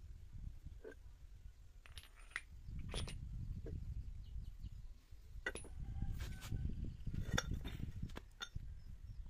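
Steel jaws of a four-jaw lathe chuck clinking against each other, the chuck body and the concrete floor as they are pulled out and set down: a scattering of sharp metal clinks over a low rumble.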